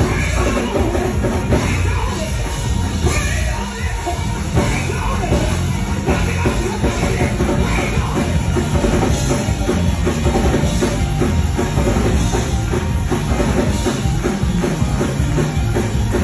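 Loud live church praise music: a band with a driving drum kit, and a woman singing into a microphone over the PA.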